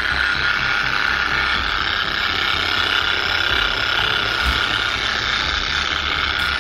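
Dual-action eccentric orbital polisher with a foam pad running steadily as it buffs polishing paste into a scooter's painted front fender: an even whir with a faint high hum.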